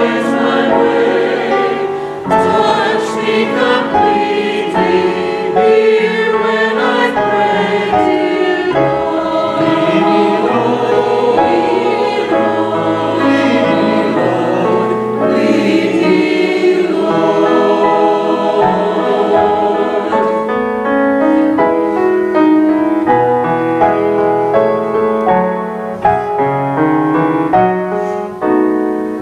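Choir singing with instrumental accompaniment. About two-thirds of the way through, the voices stop and a piano or keyboard carries on alone with sustained chords.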